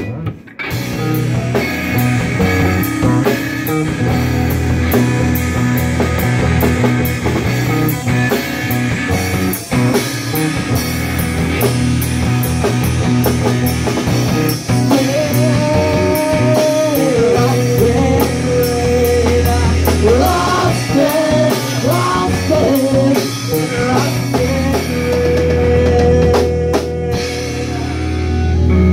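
Live rock band playing: drum kit with cymbals, bass guitar and electric guitar. The band cuts out for a split second right at the start, then plays on, and from about halfway long held lead notes that bend in pitch ride over it.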